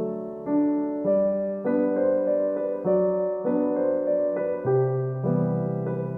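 Background music: a piano or electric piano playing a slow melody with chords, notes changing about every half second.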